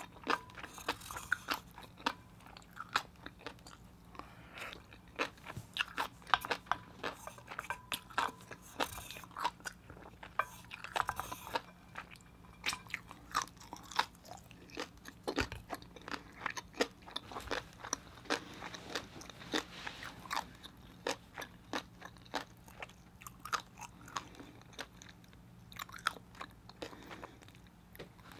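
Close-miked chewing of a mouthful of fish egg sauce: many small wet clicks and light crunches, irregular and close together.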